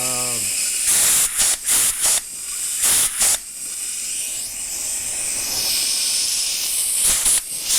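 Huck 352 pneumatic riveter cycling on shop air: a steady hiss of air from its exhaust, broken by short, louder blasts of exhaust as the piston strokes in and out, several in the first few seconds and two more near the end.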